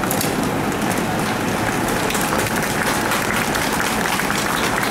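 Crowd of onlookers applauding: a steady, dense mass of handclaps.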